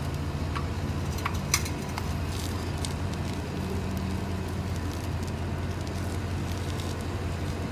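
Power wheelchair turning around on cracked asphalt: a crackling rustle of the tyres and drive over the gritty surface with a couple of light clicks, over a steady low hum.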